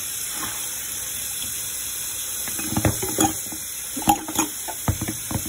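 Kitchen tap running steadily onto fresh spinach leaves in a colander. From about halfway through come several short splashes and wet rustles as a hand turns the leaves under the stream.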